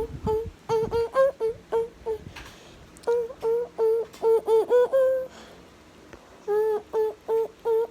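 A voice humming a tune in short high notes, several a second, in three runs with brief pauses about two seconds in and again near six seconds.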